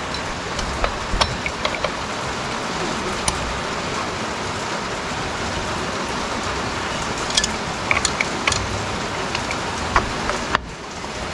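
Steady rain, a dense even hiss, with a few sharp ticks scattered through it. The hiss drops away suddenly near the end.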